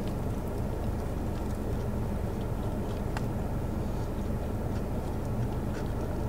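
Steady low hum of a car's cabin with the car standing, with a few faint clicks of chewing.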